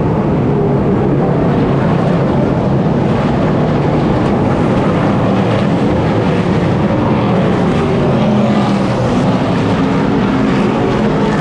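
NASCAR Craftsman Truck Series race trucks' V8 engines running hard at racing speed, a loud, steady, continuous engine noise.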